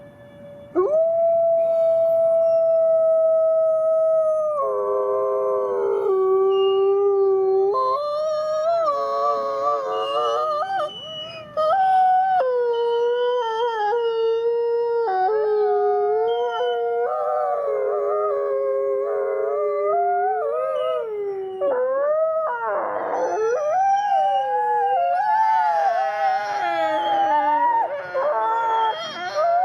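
Wolves howling: one long steady howl, then several voices overlapping in a chorus of rising and falling howls.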